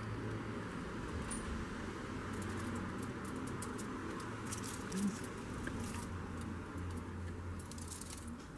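Quiet handling sounds, light rustles and scattered ticks from a plastic icing bag and aluminium foil being handled, over a steady low background hum. There is a single small knock about five seconds in.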